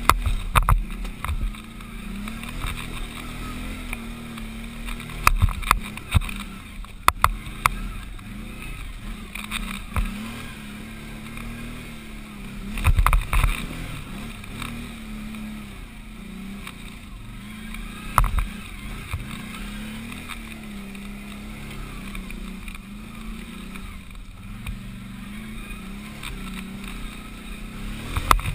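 Can-Am 500 XT ATV's V-twin engine running hard uphill, its pitch wavering up and down with the throttle. Sudden loud knocks and thumps come several times as the machine jolts over the rough, rutted trail.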